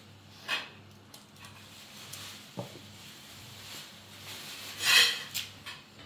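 Kitchen knife scraping and cutting raw quinces by hand: a few short scraping strokes, the loudest near the end, with a light knock about two and a half seconds in.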